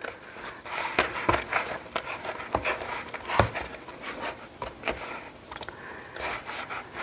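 Hands kneading soft pretzel dough in a glass mixing bowl: irregular soft squishes and slaps, with a few sharper knocks against the bowl, the loudest about a second in and about three and a half seconds in.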